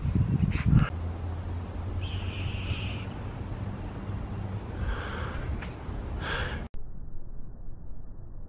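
Red-tailed hawk screeching: one hoarse call about two seconds in, lasting about a second, with shorter harsh bursts later on. Wind rumbles on the microphone in the first second.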